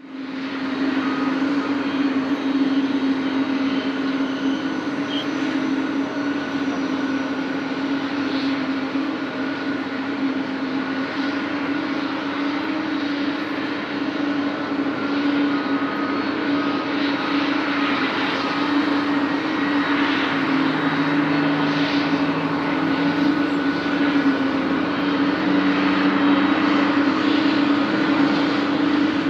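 A Boeing 767-300ER's twin turbofan engines running on takeoff. A loud, steady jet roar with a constant humming tone, swelling slightly toward the end.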